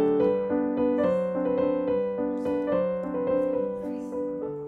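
Background piano music playing a melody of held notes.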